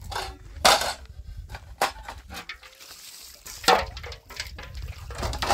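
Metal pots, plates and cups clanking against each other as they are handled and stacked, with about four sharp, loud clanks a second or more apart.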